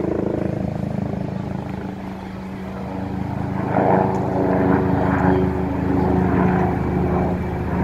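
Eurocopter Tiger attack helicopter's rotor and turbine engines running: a rapid, even rotor beat over a steady engine hum, getting louder about four seconds in.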